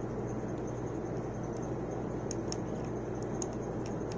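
Faint scattered ticks of a fingertip and a small screw against a laptop's plastic case as the screw is turned by hand and doesn't catch, over a steady low hum and hiss.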